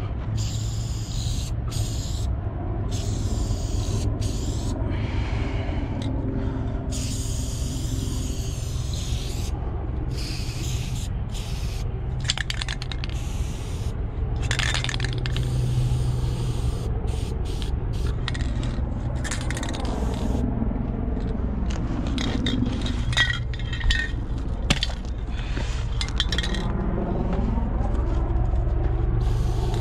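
Aerosol spray paint can hissing on and off in repeated bursts as a throw-up is painted, over a steady low rumble, with scraping and a few sharp clicks.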